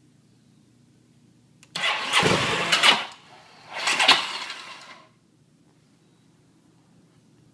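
Aprilia Mana 850's V-twin engine cranked and catching briefly, then dying: two short bursts of about a second each, the second fading away. The bike won't start, a fault that persists after the o-ring replacement made under the tech bulletin for stalling at idle.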